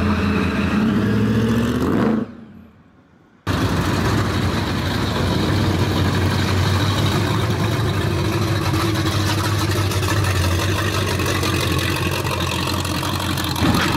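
A supercharged 1957 Chevrolet's V8 running, rising in pitch before it fades out about two seconds in. After about a second of low sound, a tubbed first-generation Chevrolet Camaro's V8 starts abruptly and runs steadily as the car rolls past at low speed.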